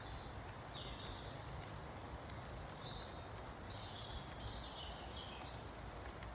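Steady rain falling through woodland, an even hiss of drops, with a bird singing several short high phrases and a few thin high whistles.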